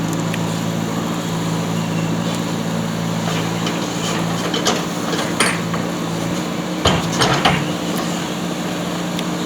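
JCB backhoe loader's diesel engine running steadily, with sharp metal clanks from the machine's digging gear: two a little before the middle and a quick run of three a couple of seconds later.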